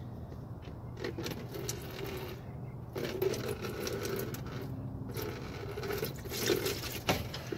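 Engine oil draining from the oil pan's drain hole and splashing into a plastic bucket. It starts about a second in, as the drain plug comes out, and then runs in a steady stream.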